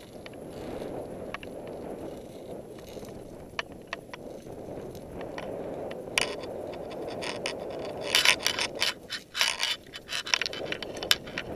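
Metallic clinks and scrapes of climbing gear against the steel safety cable and rock: scattered clicks at first, then a quick run of sharp clicks and scrapes lasting a few seconds near the end, over a steady rushing noise.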